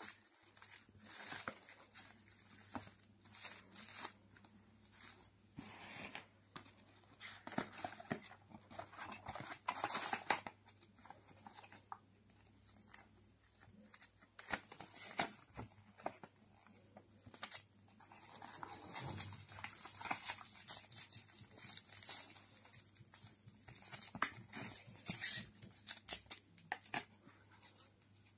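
Smartphone packaging being handled: cardboard box parts sliding and knocking, with a paper leaflet and plastic film rustling and crinkling in irregular bursts. A faint steady low hum runs underneath.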